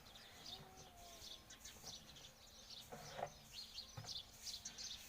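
Small birds chirping faintly and repeatedly in the background, with a couple of soft knocks about three and four seconds in.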